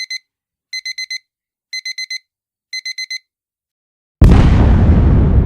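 Digital alarm-clock beeping: quick bursts of four identical high beeps, about once a second, which stop a little after three seconds in. About a second later a sudden loud rushing noise cuts in, heaviest in the low end.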